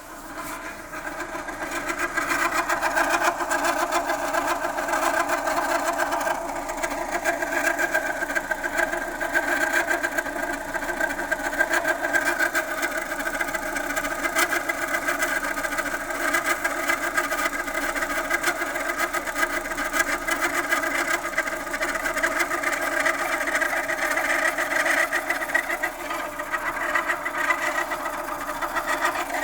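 Chevrolet Lacetti's 1.6-litre F16D3 inline-four engine running steadily with a fast, even ticking clatter over its hum. Mechanics put the noise down to the timing-belt tensioner pulley, though that pulley and the water pump are new.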